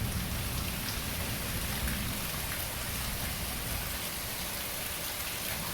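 Heavy, steady tropical-storm rain pouring down.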